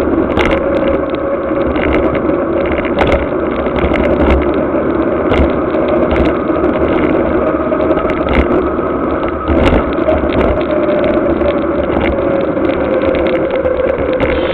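A mountain bike rolling fast on wet asphalt, its tyres giving a steady hum that wavers a little in pitch with speed. Over it run a rush of wind on the microphone and frequent sharp rattles from the bike-mounted camera jolting over bumps.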